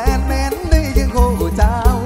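Live mor lam band music played loud over a stage sound system: a drum kit and bass keep a steady driving beat under a wavering, ornamented melody line.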